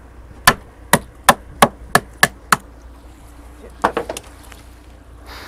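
A wooden stick striking hard seven times in quick succession, about three blows a second, stopping halfway through; a few fainter knocks follow about four seconds in.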